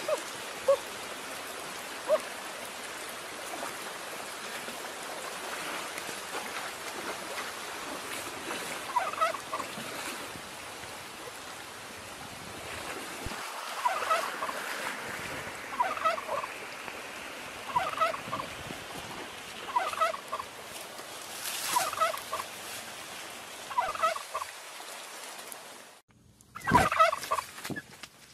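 An animal calling over and over, each call a quick cluster of short notes, repeating about every two seconds from about a third of the way in, over a steady hiss. A louder burst of calls comes near the end.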